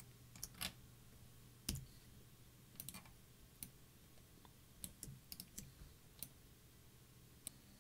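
Faint, scattered clicks of a computer mouse and keyboard, about a dozen over several seconds, with the loudest a little under two seconds in, over a faint low hum.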